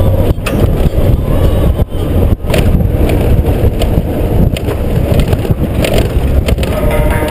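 Honda GoldWing GL1500 flat-six engine running as the bike rolls over a gravel dirt track, with a loud, continuous rumble and crunch of tyres on loose stones.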